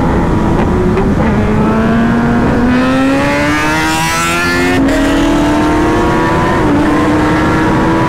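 Kawasaki Ninja ZX-10R inline-four engine accelerating on the road. Its pitch climbs steadily, drops sharply at an upshift about five seconds in, climbs again and shifts once more near the end, with wind rushing over the microphone underneath.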